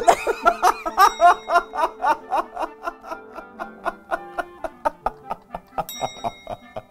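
A man laughing hard in quick repeated bursts, about four a second, loudest in the first few seconds and then tapering off, over background music.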